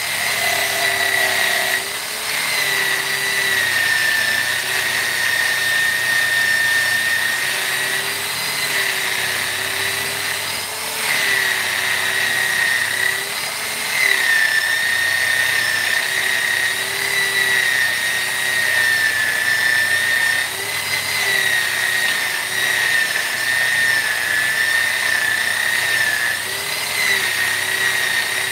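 High-speed electric rotary power tool running continuously with a steady high whine that sags slightly in pitch and recovers every few seconds.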